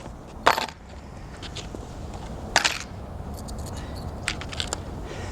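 Metal padlocks and keys being handled: two sharp metallic clinks, then a run of small light clicks.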